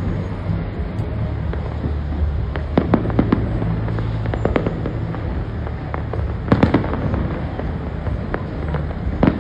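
Aerial fireworks shells bursting in the sky, an irregular run of sharp bangs with a cluster of the loudest about two-thirds of the way through, over a steady low rumble.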